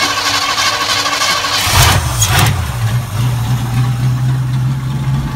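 Ford 302 V8 being cranked over by its starter with a steady whine. It fires about two seconds in, runs unevenly for a moment, then settles into a steady low idle through nearly open headers.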